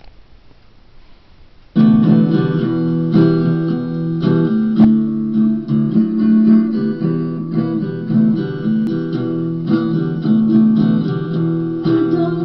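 Guitar strumming the instrumental intro of a blues song, beginning abruptly about two seconds in and carrying on in steady chords.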